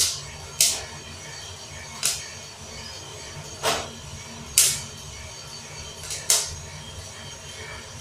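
Coffee beans cracking in a drum roaster over a gas burner: sharp, irregular pops about once a second, heard over a steady low rumble from the burner and turning drum. The cracking is a sign that the roast has reached the crack stage.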